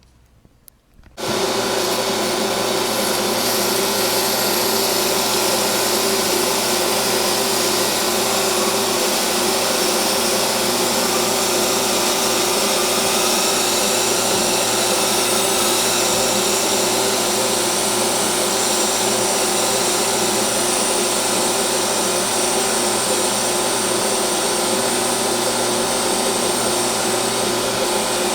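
Metal lathe starting up about a second in and then running steadily, its motor hum under a steady hiss from sandpaper held in a tool-post fixture polishing the spinning, oiled steel stock.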